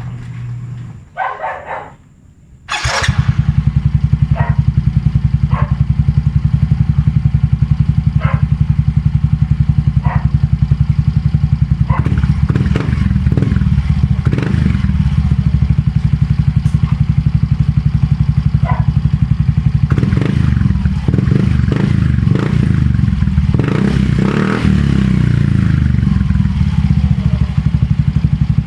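Yamaha Mio Soul i 125 scooter's single-cylinder four-stroke engine starting about three seconds in, then running loud through an Organ Sport V5 aftermarket exhaust with no silencer. The throttle is blipped a few times in the second half, so the pitch and level rise and fall.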